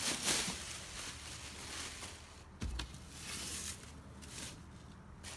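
Clear plastic wrap and a foam packing sheet crinkling and rustling as they are pulled back off a new wheel inside a cardboard box, loudest at the start, with a dull thump a little past halfway.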